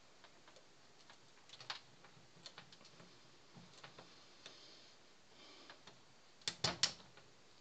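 Circlip pliers working a very stiff steel retaining ring into place on a jack's top: scattered small metal clicks and scrapes, then three sharp clicks close together near the end.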